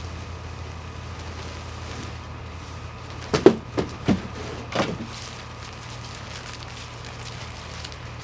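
A steady low hum with four short knocks and rustles in quick succession near the middle, as the boxed folding cot is handled.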